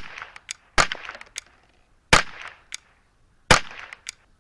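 Semi-automatic .22 LR rifle (10/22 pattern with a KSA barrel) firing Eley Team rounds in steady slow fire: three sharp shots about a second and a half apart, each followed by a couple of fainter cracks. The rounds travel at roughly 1,025 feet per second, just under the speed of sound.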